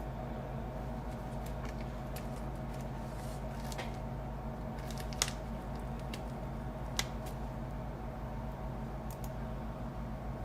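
Small sharp clicks and taps from handling tiny tools and screws on a laptop, scattered and irregular, the loudest about five seconds in and another about seven, over a steady low electrical hum.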